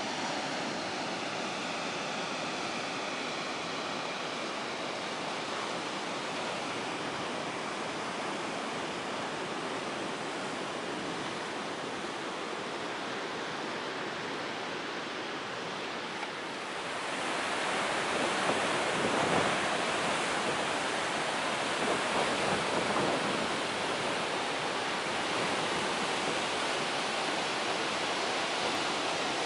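Steady rushing noise of sea surf and wind on the shore, with no voices. A little past halfway it grows louder and fuller.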